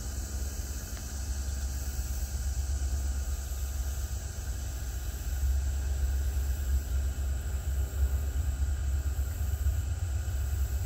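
Wind buffeting the microphone: a low, gusting rumble that grows stronger about five seconds in.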